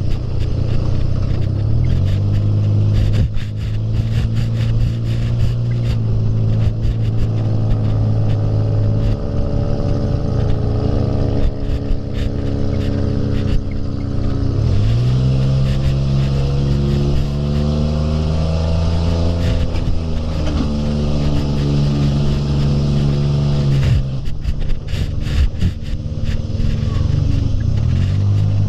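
Off-road buggy engine running under load, its pitch climbing, holding and dropping several times as it accelerates and eases off. A constant rattle and clatter of loose parts runs alongside it.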